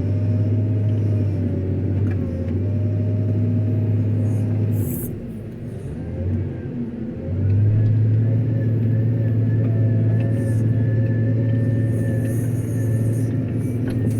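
JCB 426ZX wheel loader's diesel engine running with a steady drone under working load; it eases off about five seconds in and picks up again about two seconds later, with a faint high whine over it.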